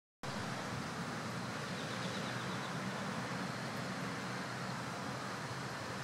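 Steady outdoor ambient noise: a low rumble under an even hiss, with a brief run of faint high chirps about two seconds in.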